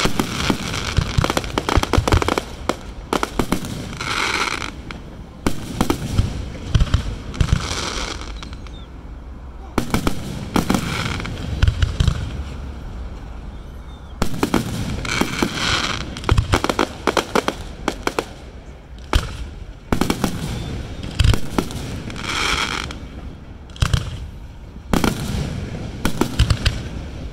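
Aerial firework shells bursting overhead at a fireworks display: many sharp bangs in quick succession, coming in waves every few seconds.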